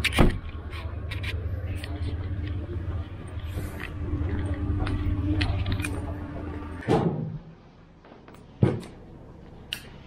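A motor vehicle's engine running with a low steady rumble that stops about seven seconds in, with a few sharp thumps, one just as the rumble ends and another a couple of seconds later.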